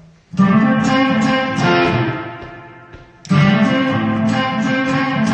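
Electric guitar played chordally, with two loud strummed chords, about half a second in and again near three and a half seconds in, each left to ring and fade, with lighter notes picked in between.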